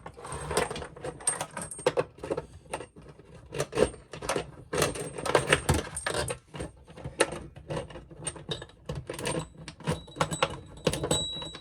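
Irregular metallic clinks, knocks and scraping as a mixer tap's three water hoses and their metal fittings are pushed and rattled through a single mounting hole.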